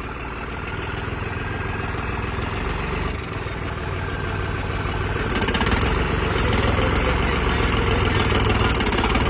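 New Holland 3630 tractor's diesel engine running, getting louder about five seconds in as it is revved to move off.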